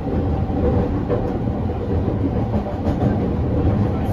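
Interior running sound of a JR 209 series 1000-subseries electric train with Mitsubishi GTO-VVVF drive, heard from inside the passenger car: a steady low rumble of wheels on rail with a few faint rail-joint clicks.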